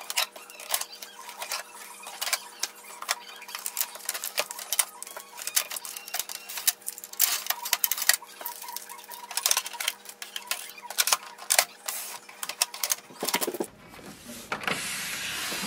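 Blue shipping tape being peeled off a printer's plastic casing: irregular crackling and ticking as the adhesive lets go. Near the end a louder steady hiss takes over for about a second.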